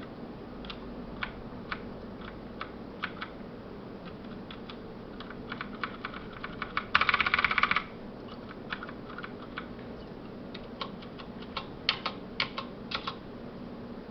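Noppoo Choc Mini mechanical keyboard with Cherry MX Brown switches being typed on: scattered single keystrokes, a dense rapid run of key presses lasting under a second about seven seconds in, and a few louder strokes near the end.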